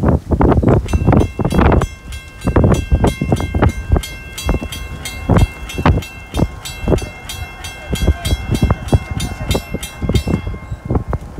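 Railroad grade-crossing bell ringing in quick, even strokes, about three a second, which signals an approaching train. It starts about a second in and stops shortly before the end. Wind buffets the microphone throughout.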